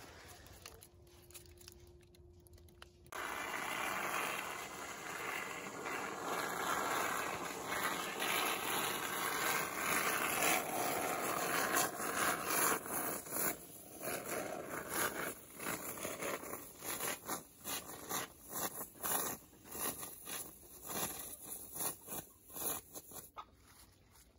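Aerosol can of expanding spray-foam filler hissing as foam is sprayed through its straw into the gaps between logs. It starts about three seconds in as a steady spray for about ten seconds, then goes on in many short spurts.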